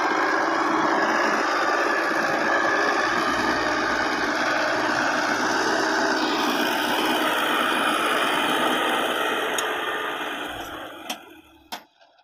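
Fiat 640 tractor's four-cylinder diesel engine running steadily under load while pulling a tine cultivator through dry soil. The sound fades away near the end, with two short clicks.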